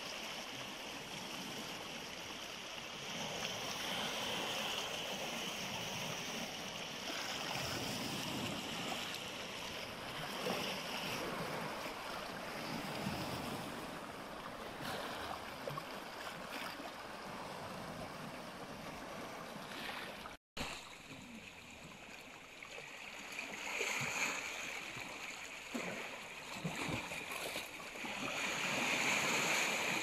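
Calm Black Sea waves lapping and washing around shoreline rocks, rising and falling in gentle swells. The sound cuts out for an instant about two-thirds of the way through.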